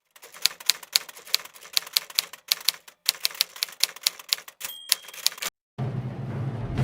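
Keys of a 1916 Oliver No. 9 typewriter striking in quick, uneven runs of sharp clacks with two short pauses, and a brief bell ring near the end of the typing. The typing stops, and after a short silence music begins.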